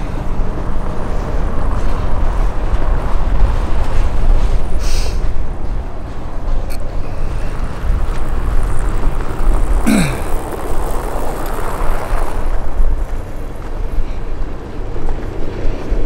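Wind buffeting the camera microphone: a loud, gusting low rumble. A brief falling squeak comes about ten seconds in.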